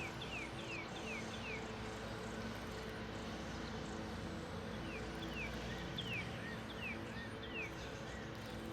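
A bird calling a series of short falling whistled notes, about three a second, in two runs with a pause between them, over steady outdoor background noise.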